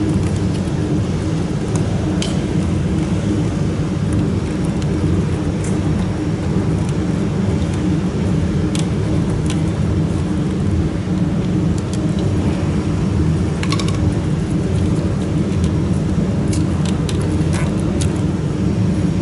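Steady low machine drone with a few short light clicks and taps scattered over it, a cluster of them late on, fitting a screwdriver and fingers working on a switch fitting inside the machine.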